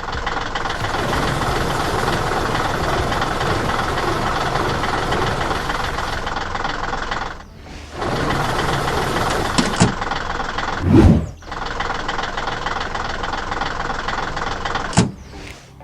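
Heavy vehicle engine running steadily, a cartoon sound effect for a loader. It drops out briefly twice, with a loud low thump about eleven seconds in and a sharp knock near the end.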